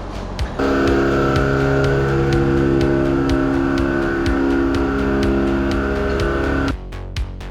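Electronic background music with a steady beat. From about half a second in until near the end, a loud steady drone of several held tones sits over the beat, then cuts off suddenly.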